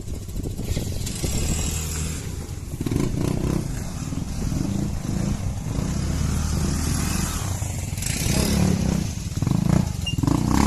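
Motorcycle engine running while riding, the pitch shifting a little as the throttle changes, with wind rushing over the microphone.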